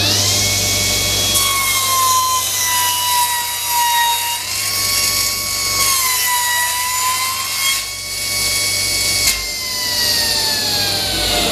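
Table saw ripping a narrow strip off a timber board: the blade's steady whine sags in pitch while it cuts, then slides down in pitch near the end as the saw winds down.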